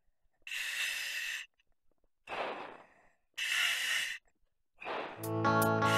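A scuba diver breathing through the regulator of a full face mask: about four separate breaths, each under a second long, heard as hissing with dead silence between them. Music starts near the end.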